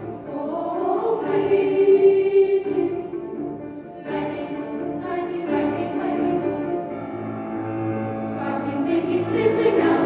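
Children's choir singing in parts, the sound swelling, dipping about four seconds in, then building again near the end.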